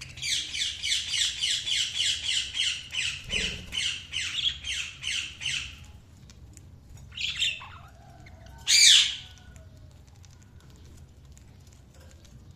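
Budgerigar calling: a fast, even series of harsh chirps, about four a second, for some six seconds, then two separate single calls, the second one the loudest.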